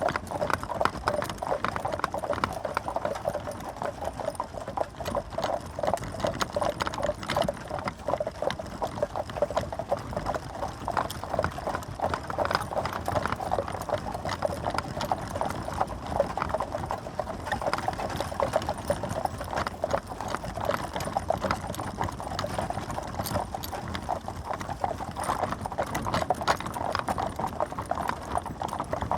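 Horse and carriage on the move: the horse's hooves clip-clop steadily in a continuous run of quick knocks.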